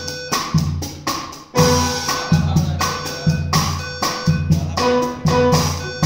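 A live jam on a drum kit, electric guitar and piano, led by loud drum hits about twice a second with crashing cymbals. A steady electronic alarm tone, the building's fire alarm, sounds underneath the playing.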